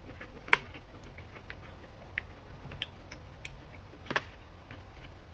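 Eating sounds: scattered light clicks and taps of utensils against bowls and dishes, with two louder clacks about half a second in and just after four seconds.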